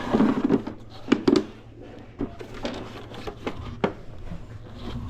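Irregular knocks, clunks and small clicks of the wheelchair's battery pack and its plastic parts being handled and turned over, with loose screws dropping out. The loudest clunks come right at the start and again about a second in.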